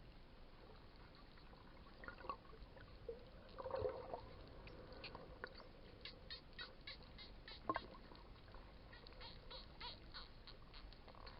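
Wild dolphins calling underwater, faint: a short buzzy squawk about four seconds in, then series of rapid clicks through the second half.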